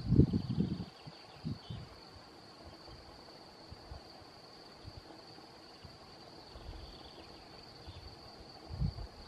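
Wind gusting on the microphone in low bursts, strongest in the first second with another near the end, over a steady high-pitched insect trill.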